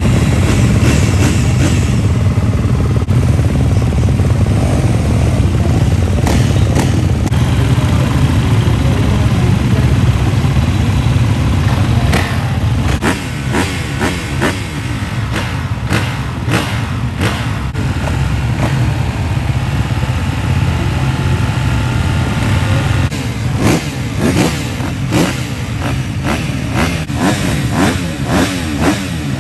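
A line of motocross bikes on the start line, their engines idling and being revved together. The short, sharp throttle blips overlap and come thicker from about halfway.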